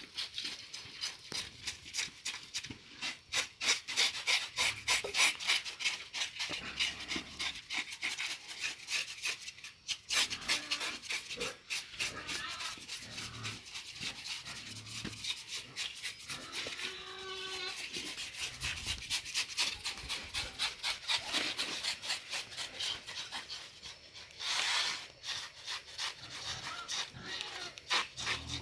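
A knife blade scraping the bristles off a scalded pig's carcass, in quick repeated strokes of about three to four a second.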